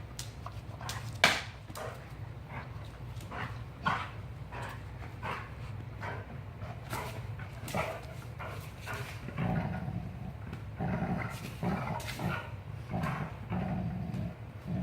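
Dogs in rough play: scattered sharp knocks and scuffles in the first half, the loudest about a second in, then from about halfway a run of short, low play-growls.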